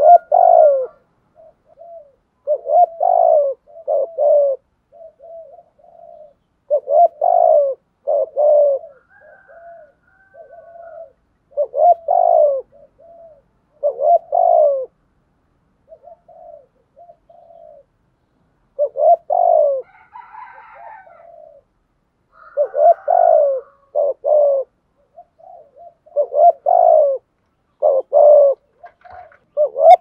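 Spotted dove cooing in repeated phrases of a few low coos, a phrase every few seconds, with softer short notes between them.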